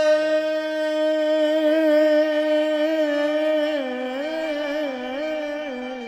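A singer holds one long note of a Gujarati folk song over soft instrumental accompaniment. The note is steady at first, then from a little past the middle it wavers in ornamented turns.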